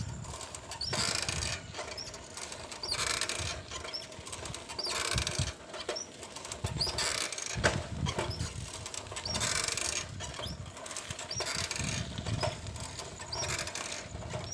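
Rhythmic rubbing swishes, about one every two seconds, with faint squeaks, from a bicycle being pedalled.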